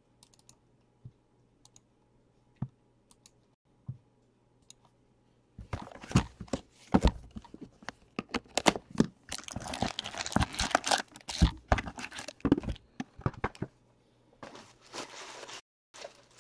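Plastic shrink wrap and a cardboard trading-card hobby box being torn open and handled. After a few faint clicks, a dense run of crinkling and tearing starts about five and a half seconds in and lasts about eight seconds.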